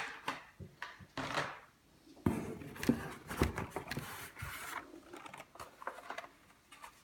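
Carded Hot Wheels blister packs being handled and pulled from a cardboard case: irregular clicks and clacks of cardboard and plastic, with a longer rubbing rustle from about two to five seconds in.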